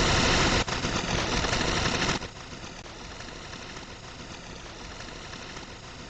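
Synthetic audio generated from a picture by image-to-sound conversion software: a dense, harsh, buzzing mass of many tones. It is loud for about two seconds, then drops to a quieter, steadier layer.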